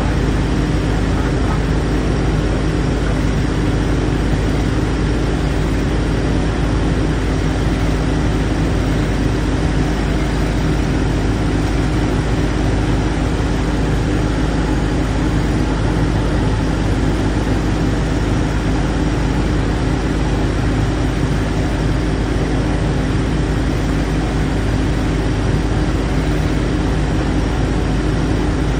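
Engine of an AgroTK YM12 mini excavator running steadily at a constant speed while the machine is being operated, a continuous hum with no revving changes.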